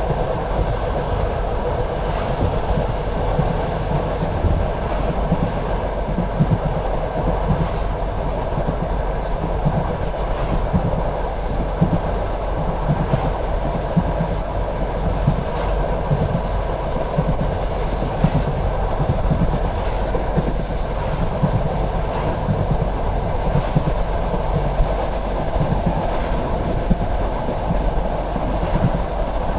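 Passenger railway carriage rolling steadily along the track: a continuous rumble of wheels on rails with occasional light clicks from the rail joints.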